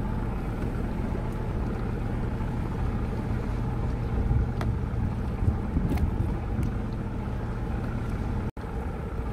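Steady open-water noise aboard a small rigid-inflatable boat: wind on the microphone and water against the hull, over a low steady rumble, with a couple of faint ticks in the middle.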